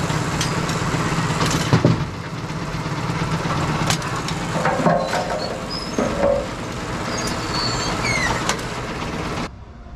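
Brunswick A-2 bowling pinsetter running: a steady mechanical hum with several metallic clanks and a few short squeals from its moving parts. The sound drops away abruptly just before the end.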